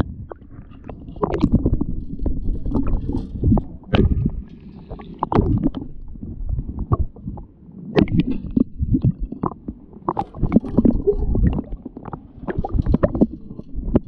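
Muffled underwater gurgling and sloshing of water moving around a submerged action camera as someone wades through shallow water, with irregular low rumbles and knocks.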